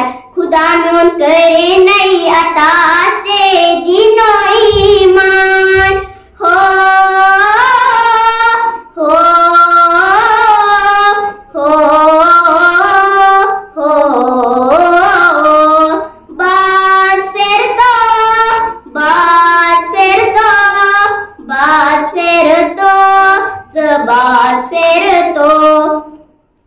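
A girl singing a Kashmiri nazm solo, with no instruments, in short melodic phrases broken by brief breaths every couple of seconds.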